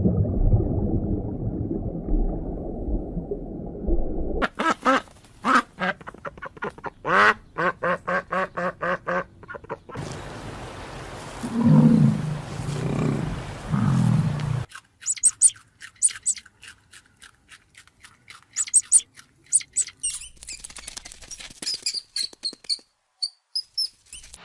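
A run of different animal sounds. First a low rumbling growl, then a rapid series of short pitched calls, several a second, then a few low calls, and finally sharp, high chirps and clicks.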